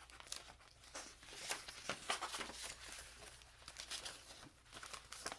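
Paper pages, tags and card of a handmade junk journal being handled and turned: a run of small crinkles, rustles and light taps.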